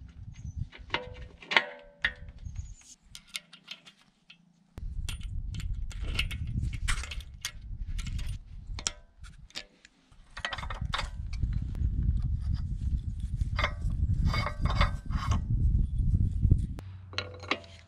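Steel parts and hand tools clinking and knocking against each other in irregular bunches, some strikes ringing briefly, as excavator attachment hardware is handled and fitted. An irregular low rumble runs under most of the middle.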